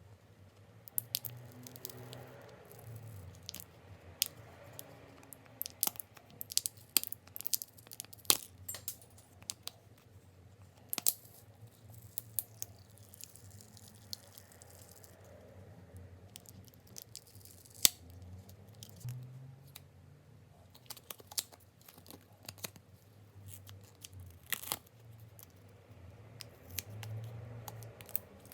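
Small tools and fingers working on an opened Cat S60 smartphone during a battery replacement: irregular sharp clicks and scrapes on the phone's casing and parts, some close together and some seconds apart.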